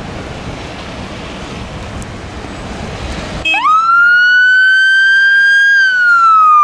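Wind rushing on the microphone. Then, about halfway in, the siren of an Emergency One EV0 electric fire appliance starts: a wail that shoots up, climbs slowly for a couple of seconds, then starts to fall.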